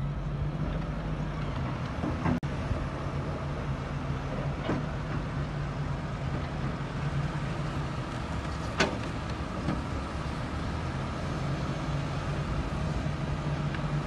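Diesel engines of heavy earthmoving machinery, a crawler excavator and a backhoe loader, running steadily under load. A few sharp knocks stand out, about two, five and nine seconds in.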